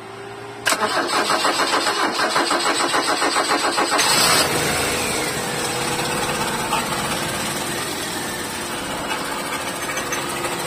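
Ford Lynx engine being cranked by the starter motor with a fast, even pulsing, catching after about three seconds with a brief rev that falls away, then settling into a steady idle. It is a test start after the fuel rail and injectors were reseated to stop a fuel leak.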